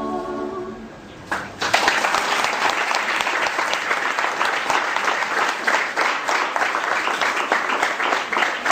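An a cappella klapa group's last chord dies away within the first second; after a short pause the audience starts applauding and keeps clapping steadily.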